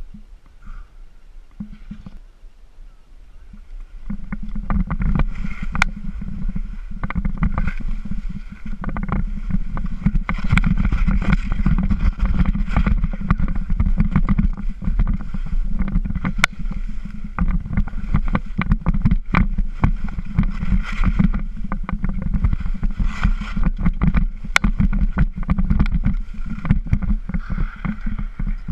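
Skis scraping and chattering over firm snow on a fast downhill run, with wind rumbling on the camera's microphone. The rumble comes in about four seconds in and stays loud, broken by frequent sharp scrapes of the ski edges.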